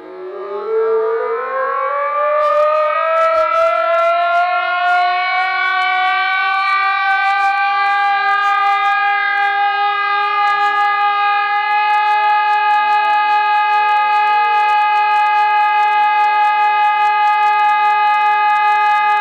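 Emergency alert siren winding up, its pitch rising over the first several seconds, then holding one steady loud tone over a lower steady tone. Faint crackling clicks run through it after the first couple of seconds.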